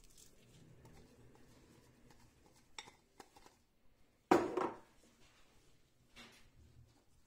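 A ceramic bowl set down on a wooden board with a single loud clunk about four seconds in, after faint rustling of diced onion being scattered by hand. A softer knock follows near the end as the gloved hand presses the onion onto the meat.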